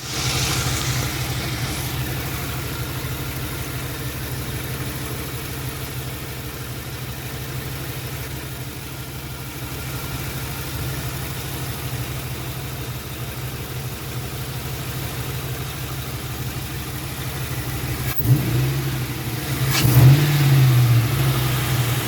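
2003 Mustang GT's 4.6 L two-valve V8 running steadily while the car is driven. Near the end there is a sharp click, then the engine revs up and back down once. The engine is running with its AC compressor bypassed by an idler pulley on a shorter serpentine belt.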